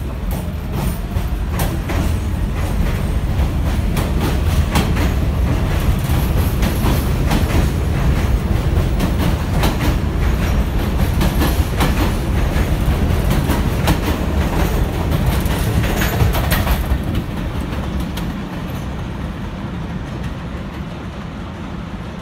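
R46 subway train running past the platform: a heavy rumble with quick repeated clicks of steel wheels over rail joints. It grows louder over the first few seconds, then drops off about 17 seconds in as the last car clears.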